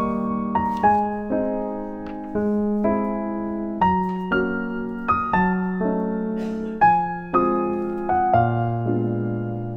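Background music: a gentle piano melody, notes struck one after another and left to ring.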